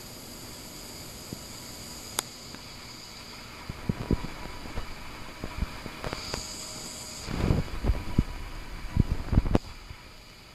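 Steady hiss with a faint high whine, then bumps, scuffs and thumps of a handheld phone's microphone being moved about from about four seconds in, heaviest around eight and nine seconds.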